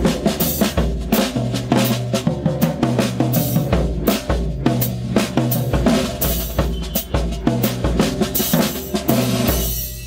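Drum kit fitted with medium-thickness natural-skin heads, including a 22-inch kick drum, played with sticks: a fast run of snare and tom strokes over kick drum thumps about once a second. It stops just before the end.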